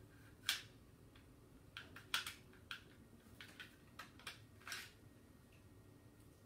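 Smith & Wesson M&P Shield 9mm pistol being reassembled by hand, its slide worked on the frame: a series of irregular sharp clicks and clacks, the loudest about half a second in and another about two seconds in, with a short rattle near the end.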